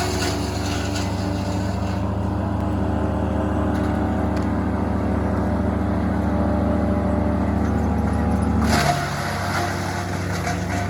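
Large engine of heavy tree-service equipment running steadily at a high, even speed. About nine seconds in, a brief louder burst comes, and then the engine settles to a lower note.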